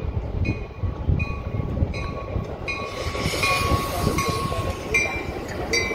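Metra commuter train of stainless-steel bilevel cars arriving, cab car first, with a steady low rumble. A bell dings about every three-quarters of a second, and a thin high squeal sounds through the middle.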